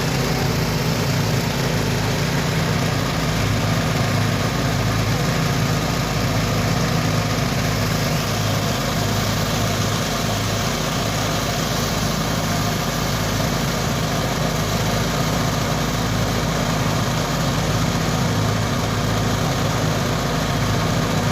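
Engine-driven mini rice threshing machine running steadily, with a constant engine drone and an even rushing noise over it.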